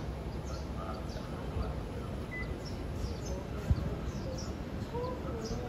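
Small birds chirping in short, high, repeated calls over the steady low rumble of a city street, with one brief low thump about two-thirds of the way through.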